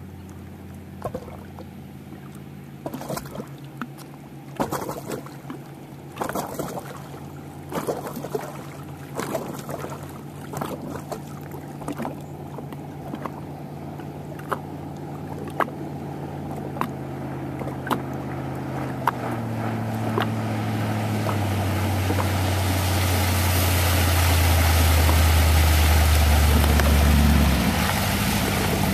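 Speedboat engine running, growing steadily louder as the boat approaches across the water; its note drops in steps near the end and the deep engine sound cuts off suddenly shortly before the end. Small slaps and splashes of water sound close by through the first two-thirds.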